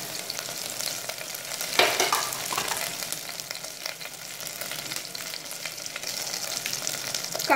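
Shallots, garlic and curry leaves frying in hot oil with mustard seeds in a pressure cooker, a steady sizzle with fine crackles, stirred with a metal ladle. One brief louder sound about two seconds in.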